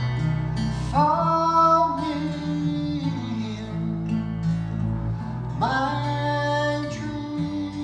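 A man singing a slow song to two strummed acoustic guitars, played live on stage; he holds two long notes, one starting about a second in and another near the middle.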